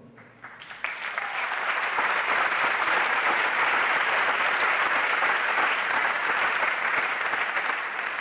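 Audience applause in a large hall, starting with a few claps and swelling within the first two seconds, then steady, beginning to die down near the end.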